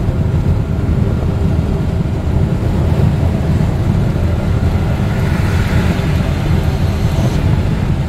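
Steady low road and engine rumble of a car cruising at highway speed, heard from inside the cabin.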